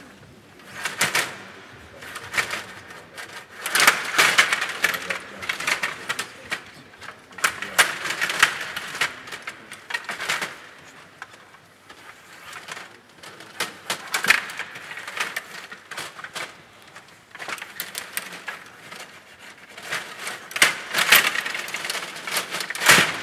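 Stiga table hockey game in play: rapid clacking and rattling of the control rods and plastic players, with the puck clicking off sticks and boards, in bursts of a second or two with short lulls between.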